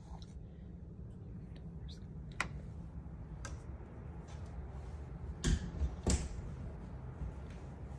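Footsteps and handling noise of a handheld phone: scattered light clicks and taps over a low rumble, with two louder thumps about half a second apart midway through.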